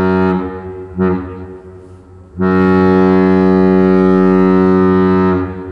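Ship's horn of the Great Lakes freighter Indiana Harbor sounding a long, short, long, short signal. A long blast ends just after the start, a short blast follows about a second in, then a long blast of about three seconds, and the final short blast begins right at the end.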